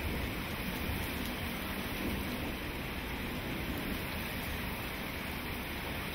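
Steady downpour of rain falling on wet pavement, an even, unbroken hiss.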